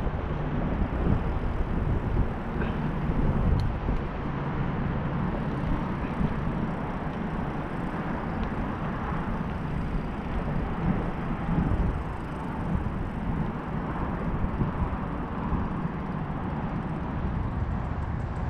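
Steady rumble of a bicycle ride: tyre noise on the pavement mixed with wind buffeting the microphone.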